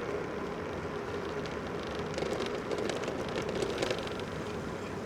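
Electric bike on the move: steady wind and tyre noise with a faint steady motor whine and scattered light ticks.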